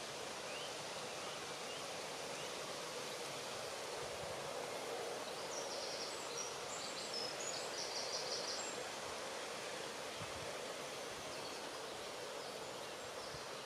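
Steady outdoor background hiss of natural ambience, with a few brief high chirps about halfway through.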